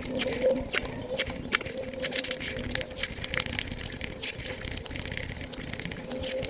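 Mukbang eating sounds played at five times speed: chewing and wet mouth smacks turned into a dense patter of quick clicks, over a steady low hum.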